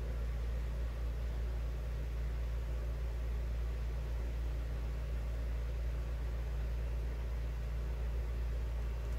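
A steady low hum with a faint hiss that does not change; no separate knocks or clicks stand out.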